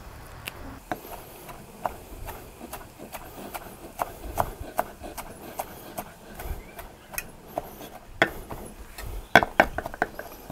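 Chef's knife chopping parsley on a wooden cutting board: irregular knocks of the blade hitting the board, with a quick run of strokes near the end.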